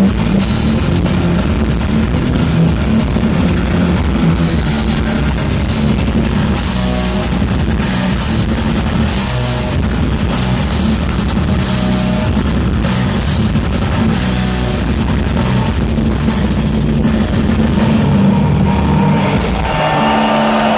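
Live heavy metal band playing loud, with distorted electric guitars and a drum kit, recorded from the crowd with muddy, poor sound. The heavy low end drops out near the end.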